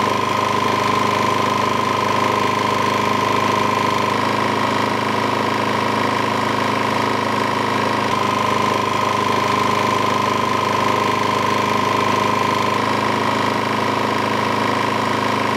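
Black Max push mower's single-cylinder engine running steadily, with a constant high tone over the engine note. It is a worn engine with a knock and low compression, running on oil mixed with Dura Lube, and it sounds smoother.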